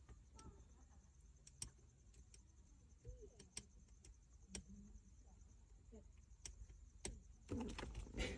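Faint scattered clicks and taps of plastic shifter trim parts and screws being handled and fitted, with a louder cluster of knocks near the end.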